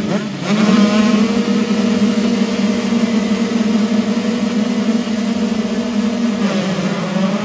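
A row of 85cc two-stroke motocross bikes revving at the start gate, their engines held at high, steady revs after a quick rise at the start. The engine note changes about a second before the end.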